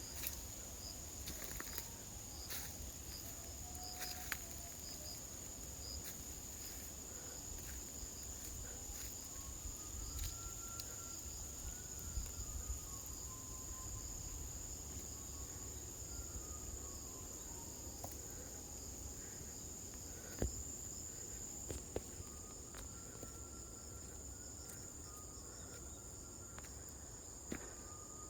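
Insects trilling in a steady, high-pitched chorus, with a low wind rumble on the microphone and a few faint clicks.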